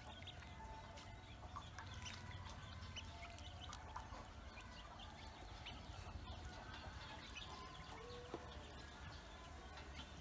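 Pekin and black ducklings peeping faintly, many short high chirps scattered and overlapping.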